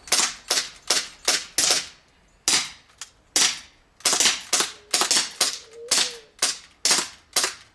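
Airsoft pistols firing in quick succession, about fifteen sharp shots with a short break around two seconds in.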